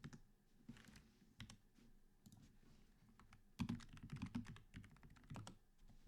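Faint typing on a computer keyboard: scattered key clicks, with a quicker run of keystrokes a little past halfway.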